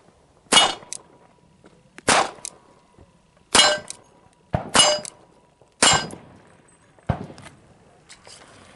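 Five .380 pistol shots fired at an AR500 steel armor plate, about a second and a half apart, followed by a fainter bang about seven seconds in.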